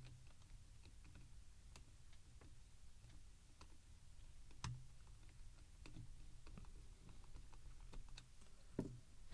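Faint, scattered clicks and light taps of a Heil Pro Set 3 headphone's ear cup parts being handled and fitted back together, with two louder knocks, one about halfway through and one near the end.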